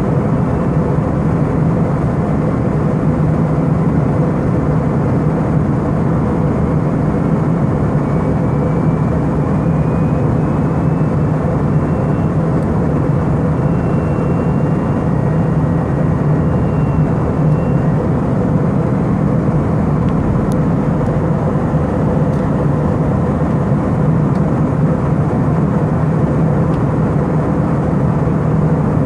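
Steady drone of engines and rushing air inside the cabin of an Airbus A319 airliner in flight, with a faint high whine that rises slightly through the middle.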